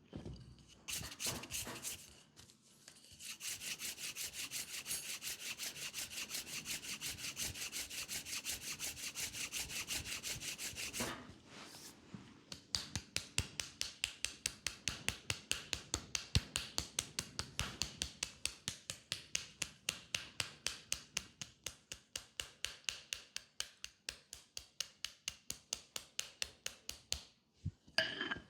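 Hands rubbing briskly over the skin of a leg during a massage, a fast, even rhythm of strokes. They pause about eleven seconds in, then resume as sharper strokes that gradually fade.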